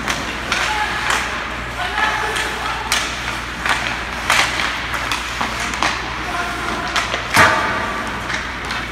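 Ice hockey play: a run of sharp stick-and-puck clacks, with short shouts from the players, and one loud knock about seven and a half seconds in.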